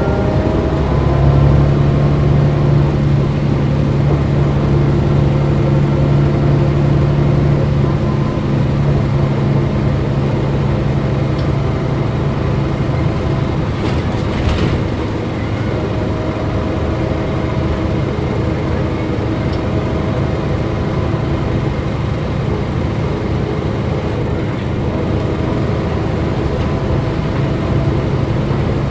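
Mercedes-Benz O405 GN2 articulated bus's engine and ZF drivetrain running steadily on the move, heard from inside the passenger cabin, the low drone easing off somewhat about a third of the way in. A short burst of hiss about halfway through.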